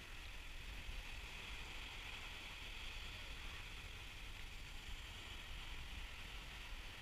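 Steady outdoor beach noise: wind rumbling on the microphone over the hiss of small waves breaking on the shore.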